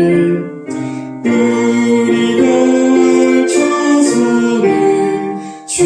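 Congregation singing a hymn in Korean, in long held notes, with a brief break for breath about a second in.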